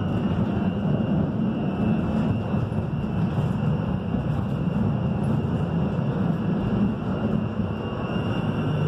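Konstal 105N tram with Protram traction motors running, heard from inside the passenger compartment: a steady rumble of wheels and running gear with a high, steady motor whine over it.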